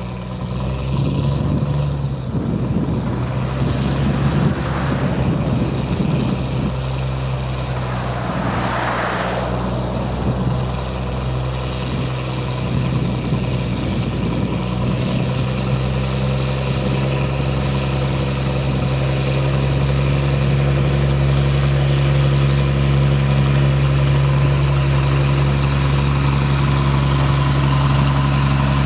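Narrow-gauge diesel locomotive's engine running with a steady low drone as it hauls its train towards the listener, growing louder in the second half.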